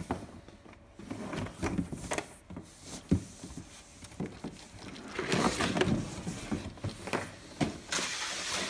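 A canister steam cleaner being lifted out of its cardboard shipping box: cardboard scraping and rustling against the machine's plastic casing, with knocks as it bumps the box walls. The sharpest knock comes about three seconds in.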